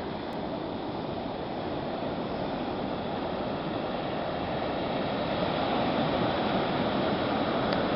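Atlantic Ocean surf washing onto a beach: a steady roar of breaking waves that slowly swells in loudness.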